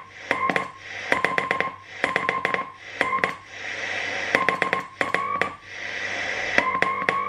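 Morse code being sent by hand on a straight key, heard as on-off beeps of a tone near 1 kHz in dots and dashes from the receiver monitoring a one-tube, self-excited push-pull twin-triode transmitter on 80 m. Each keying starts and stops with a sharp click, and the pitch drifts slightly upward on some longer elements. Receiver hiss fills the gaps.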